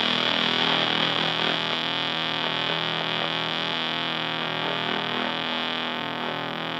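A fuzzed electric guitar chord on a Stratocaster, through a Super Power-Fuzz (a modded Big Muff) and a Fender Blues Junior amp, sustaining and slowly fading. Steady amp hum and fuzz hiss sit under it.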